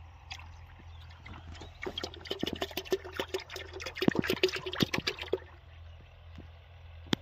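Thick liquid pouring from a plastic bottle into a plastic bucket of water, splashing and gurgling irregularly from about two seconds in until a little after five. A single sharp click near the end.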